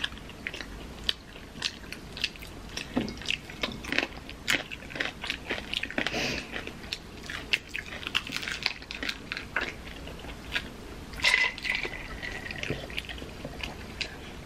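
Close-up eating sounds: crisp fried taquitos topped with guacamole being bitten and chewed, with many small crunches and wet mouth sounds.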